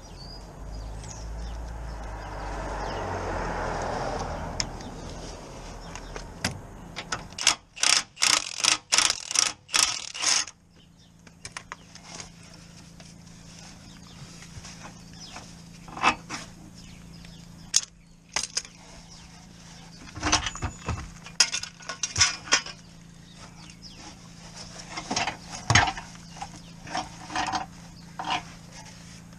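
Hand ratchet wrench clicking in quick runs of strokes while a front suspension bolt is undone, the loudest run about a third of the way in and shorter runs later.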